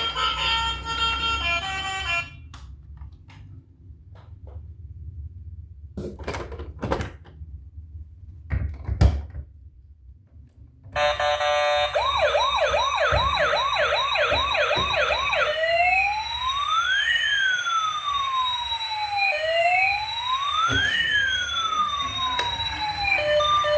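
Toy emergency vehicle's electronic siren: a fast yelp sweeping up and down a few times a second, switching after about four seconds to a slow wail of two tones gliding up and down across each other. Before it come a few knocks and clicks of handling, and music at the very start.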